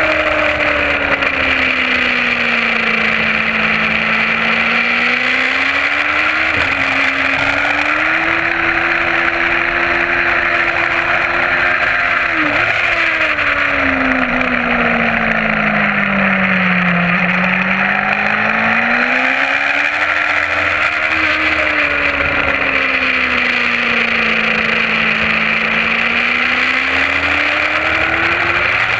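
Sport motorcycle engine heard onboard at track speed, its pitch falling as the bike slows for corners and rising as it drives out, several times over, with quick gear changes breaking the pitch. A steady rush of noise runs underneath.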